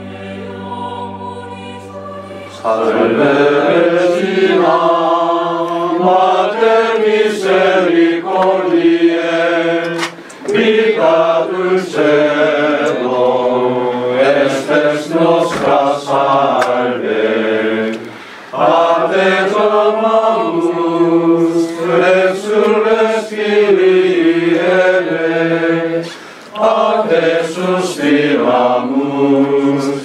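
A group of priests' voices singing a hymn together, in long phrases with brief breaks between them. A single held note opens it before the singing comes in, a couple of seconds in.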